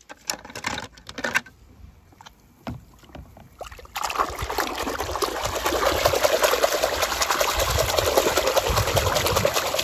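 A few clicks and knocks of plastic toy cars being handled in a tub. About four seconds in, a toy bulldozer is plunged into a tub of foamy water and swished about by hand: continuous splashing and sloshing.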